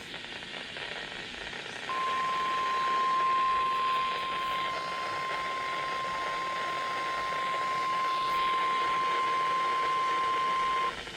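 Weather radio warning alarm tone: one steady high beep held for about nine seconds over radio hiss, starting about two seconds in and cutting off near the end. It is the alert that announces a severe thunderstorm warning.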